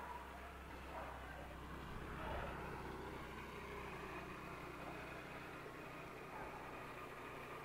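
Faint road traffic: a vehicle passing on the road, loudest about two seconds in, over a steady low hum.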